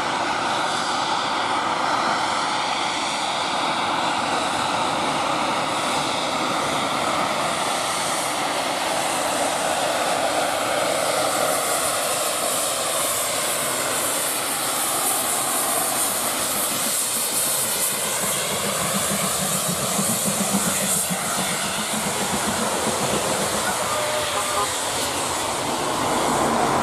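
Southern Railway Q class 0-6-0 steam locomotive No. 30541 passing with a brake van, working steam, over a steady drone whose pitch glides slowly throughout.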